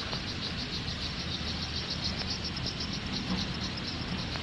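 Insects chirring in a steady, rapid pulse, high-pitched, over a constant low rumble.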